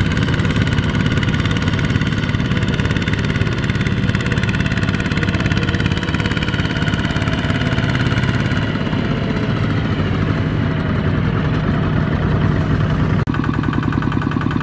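Single-cylinder diesel engine of a two-wheel walking tractor running steadily while it pulls a loaded trailer through a rice field. About 13 seconds in, the sound changes abruptly to a Kubota ZT140 walking tractor's diesel, with evenly spaced firing beats.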